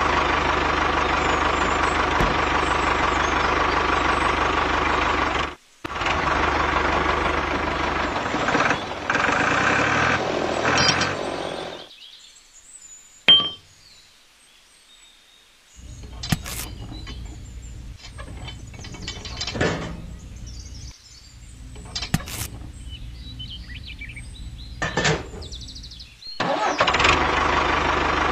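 Tractor engine sound running, cutting out about twelve seconds in. A quieter stretch follows with a low hum and a few sharp clicks as the toy trailer's drawbar is pinned to the hitch. The engine sound returns near the end.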